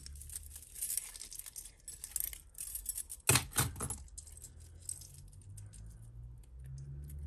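Metal costume jewellery jangling and clinking as pieces are picked up and sorted by hand, with a louder clatter a little over three seconds in.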